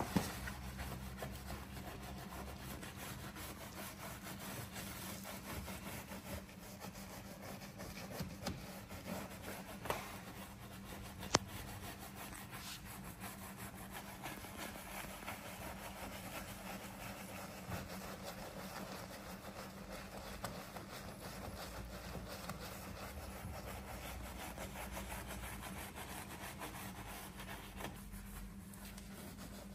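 Small detailing brush scrubbing a soapy car bumper and licence-plate frame: a steady rubbing scrub, with a few sharp clicks about a third of the way in and a low steady hum underneath.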